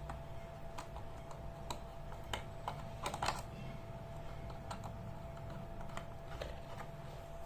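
Irregular light clicks and taps of a screwdriver and small metal parts as transistors are screwed down onto a car amplifier's metal heatsink body, over a faint steady hum.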